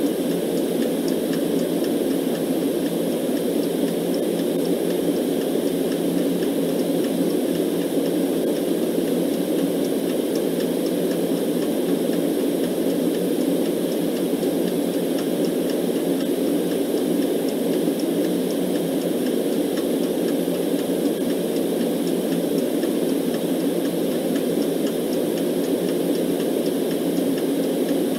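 Steady, unchanging rush of white noise, strongest low down, with a faint clock ticking over it.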